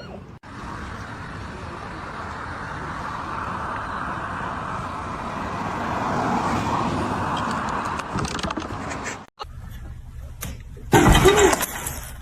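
Steady road and engine noise of a moving car, heard from inside, building up over several seconds before cutting off. After that, a short loud cry near the end.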